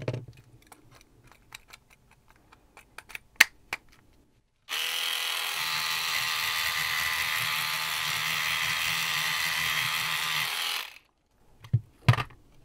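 A Sonic Scrubber battery-powered vibrating cleaning brush is switched on about five seconds in. It buzzes steadily for about six seconds while scrubbing a circuit board, then cuts off. A few light handling clicks come before it.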